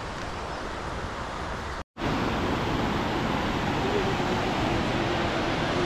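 Mountain stream rushing over rocks, a steady hiss of flowing water. It cuts out for an instant near two seconds in and comes back a little louder.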